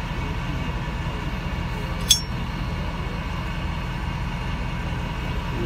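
One sharp metallic clink about two seconds in, from a homemade steel shelf-bracket puller screwed to the axle flange being worked against the metal, over a steady low hum.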